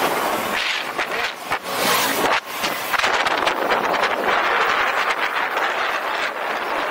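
Yamaha Aerox 155 scooter riding at speed: steady engine and road noise mixed with wind rushing over the microphone.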